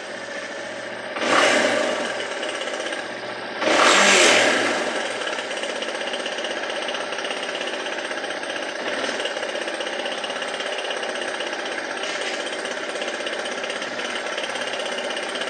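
Yamaha XTZ Lander 250 single-cylinder engine running with a very ugly mechanical noise, blipped up twice briefly about one and four seconds in, then idling steadily. The mechanic put the noise down to a worn cam chain kit and cam chain tensioner.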